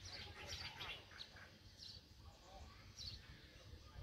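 Faint quiet outdoor ambience: several short, high bird chirps scattered through it, over a low steady rumble.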